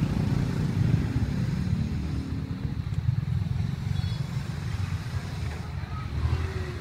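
Low rumble of motorbike traffic, with voices in the background.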